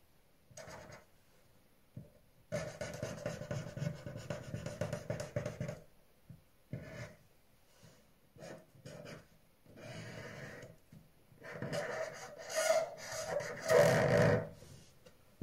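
Felt-tip pen scratching across paper in strokes of varying length with short pauses between them. The longest stroke lasts about three seconds, and the loudest strokes come near the end.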